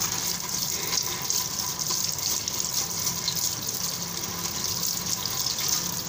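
Kitchen tap running steadily onto potatoes in a plastic basket in a steel sink while they are rubbed clean by hand under the stream.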